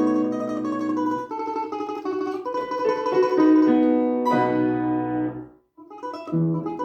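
A plucked string instrument with piano accompaniment plays, in a solo performance. Long held chords give way to a brief pause about five and a half seconds in, then it resumes with shorter, quicker notes.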